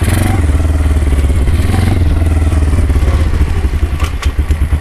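Small motorcycle-type engine with a semi-automatic gearbox on a quad, bump-started by rolling it in gear with a flat battery and no kick or electric starter. It has caught and runs with a steady, even firing beat.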